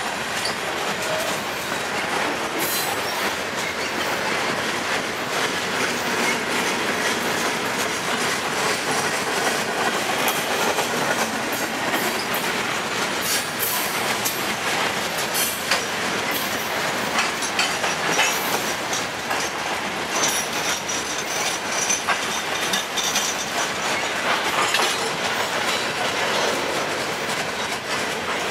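Freight train of covered hopper cars rolling past close by: a steady rumble of steel wheels on rail with repeated clicking as the wheels cross rail joints, and a brief thin wheel squeal about twenty seconds in.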